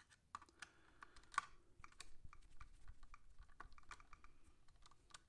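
Faint, irregular small clicks and ticks of a hex driver working a screw in an RC car's front suspension link, with small parts being handled; one click about a second and a half in stands out a little.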